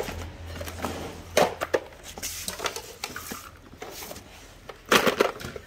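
Plastic cordless-tool battery chargers knocking and clattering as they are handled and moved about, a few separate knocks and rattles with the loudest clatter near the end.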